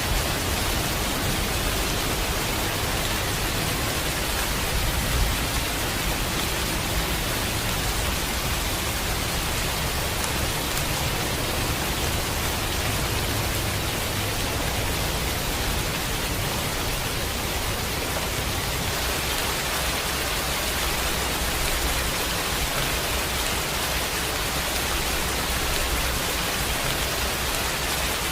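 Steady rain, an even hiss with no distinct drops or breaks.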